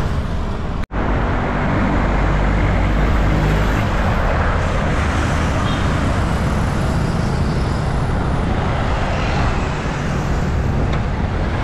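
Steady rush of road traffic and wind on the microphone while cycling along a road, with a brief cut-out about a second in.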